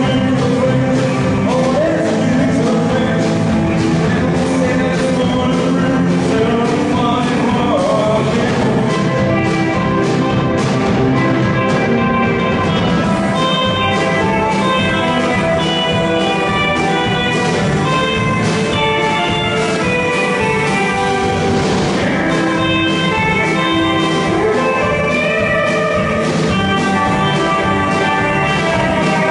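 Live band playing a rock-and-roll song with a steady beat.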